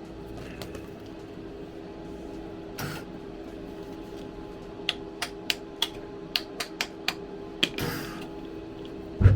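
A welder at work with a steady hum underneath. There are short bursts of arc crackle and a quick run of sharp pops as the weld sputters, a sign of the welder misbehaving. A heavy low thump comes near the end.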